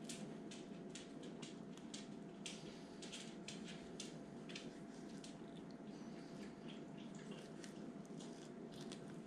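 Gerber fillet knife scraping and cutting along a coho salmon fillet as the meat is trimmed off the rib bones: an irregular run of short wet scrapes and ticks, a few a second, over a steady low background hiss.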